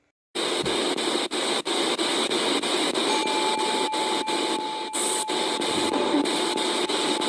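A loud, steady hiss that cuts in suddenly, with brief dropouts about three times a second; a thin steady tone joins about three seconds in.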